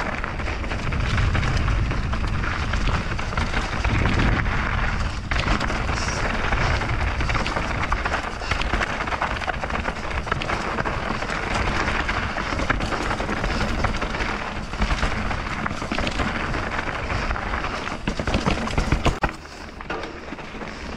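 Mountain bike riding down a dusty dirt trail: wind rushing over the camera microphone and tyres rolling on loose dirt, with frequent clicks and rattles from the bike. The noise drops sharply about a second before the end.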